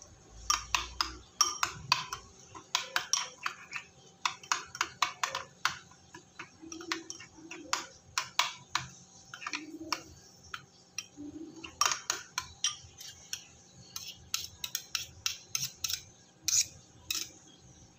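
Steel spoon clinking and scraping against a small bowl in quick irregular runs, stirring softened butter with garlic, coriander and chilli flakes into a garlic-butter spread.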